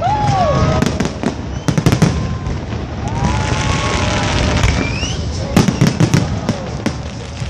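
Fireworks display: aerial shells bursting in sharp bangs and crackles over a low continuous rumble, in clusters about two seconds in and again around six seconds in.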